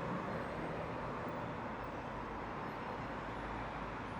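City street ambience: a steady wash of road traffic with vehicle engines running.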